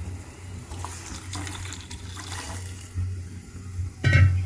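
Water boiling hard in a steel saucepan with whole spices for tea, a steady bubbling hiss over a low hum. There is a brief louder metallic clatter near the end.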